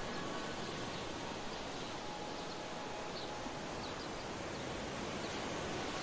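Ocean surf: a steady wash of breaking waves, with faint short high chirps now and then.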